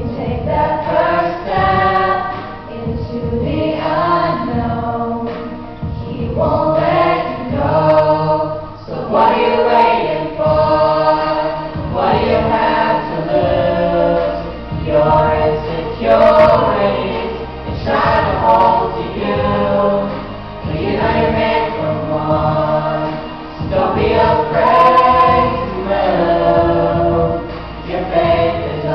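Mixed vocal ensemble of young male and female singers singing a song together in harmony through handheld microphones, the sound swelling and easing with each phrase.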